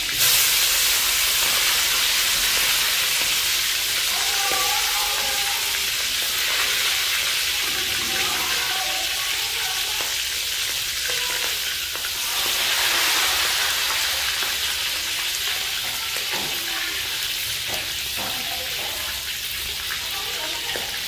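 Whole frogs deep-frying in hot oil in a wok: a steady sizzle that surges at the start and swells again about halfway through as they are stirred with a metal ladle, with a few light clicks in the second half.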